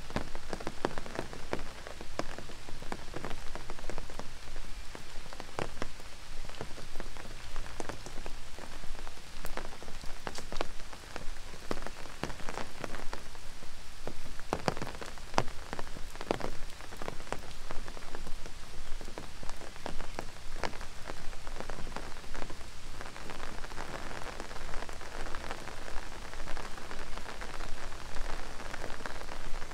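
Steady rain falling, with large drops striking close by at irregular intervals over an even hiss.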